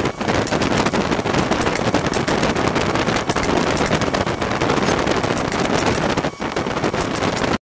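Pneumatic nail gun firing several nails into wooden slats, sharp clicks at irregular intervals over a loud steady rushing noise. The sound cuts off abruptly near the end.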